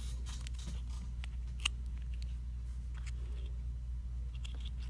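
Scattered faint clicks and taps of small tools on plastic phone parts during phone disassembly, over a steady low hum.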